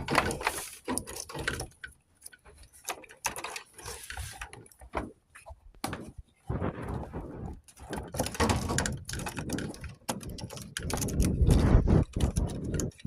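Irregular knocking, clicking and rustling, as of parts and tools being handled, growing denser and louder after about eight seconds.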